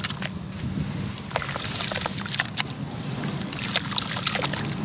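Hands squeezing and crumbling clumps of wet sand-cement in a tub of muddy water: squelching, sloshing and dripping in irregular spells. The mix is waterlogged from the rainy season, so it is wet and sloppy, not crunchy.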